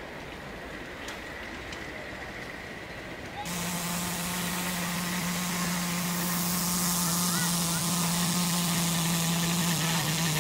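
A live-steam 5-inch-gauge model locomotive blows one long whistle blast: a steady low tone over loud steam hiss that starts suddenly about a third of the way in, dips slightly in pitch near the end and then cuts off.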